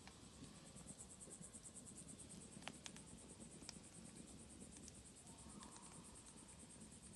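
Faint crickets chirping in a rapid, even, high-pitched pulse, with a few faint clicks over the middle.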